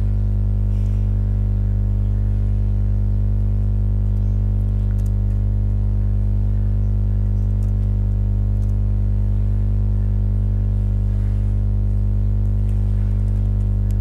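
Loud, steady electrical hum with a ladder of overtones, with a few faint clicks from keys being typed.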